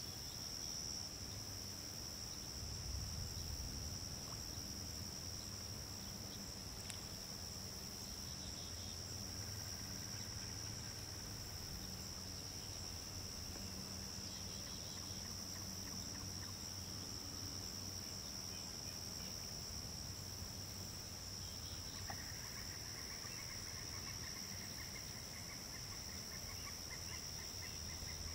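A steady high-pitched insect drone over a low background rumble. About two-thirds of the way in, a faint, rapid, dry trill joins it and keeps going.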